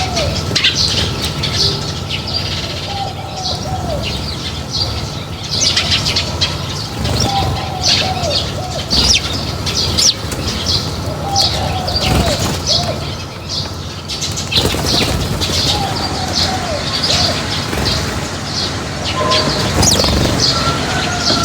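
A flock of small birds chirping densely at a feeding spot, with fluttering wings and a lower falling call repeated every couple of seconds, over a steady low rumble.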